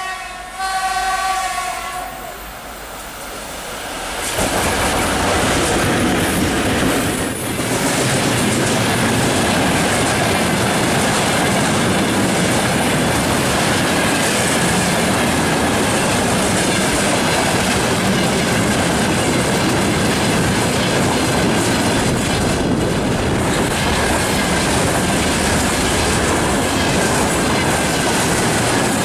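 VL80S electric locomotive sounding its horn for about two seconds. About four seconds in, the locomotive and its freight train start passing close by, a loud steady rumble of wheels on the rails.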